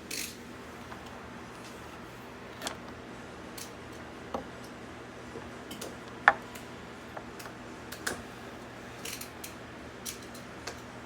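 Scattered light clicks and taps of a wiring harness and its plastic connectors being handled, over a faint steady background hum; the sharpest click comes about six seconds in.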